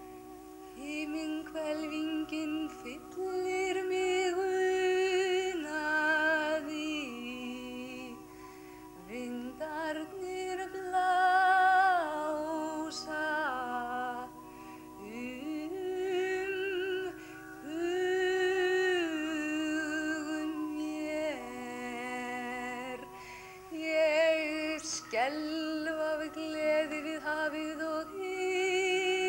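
Several voices singing wordless held notes together, humming and sliding slowly between pitches with vibrato, with no instruments.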